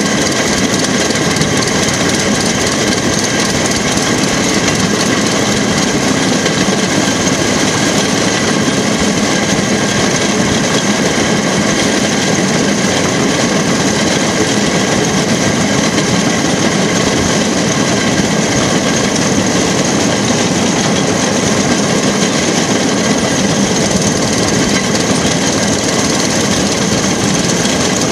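Rail track car (jigger) running along the line: a steady engine note mixed with the rolling noise of its wheels on the rails, unchanged throughout.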